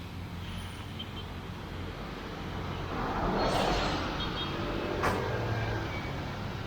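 Street traffic: engines running steadily, with a vehicle passing about three seconds in and a short sharp click about five seconds in.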